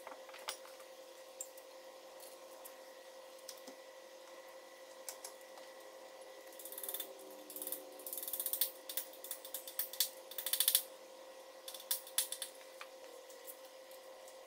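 Hand ratchet clicking in several quick runs, from about halfway through to near the end, as bolts on the engine are turned.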